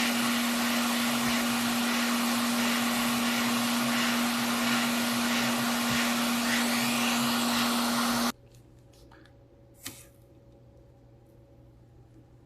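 A bench repair tool's motor-driven blower running steadily: an even air hiss over a constant low hum, which cuts off abruptly about eight seconds in. Faint room tone and a single light click follow.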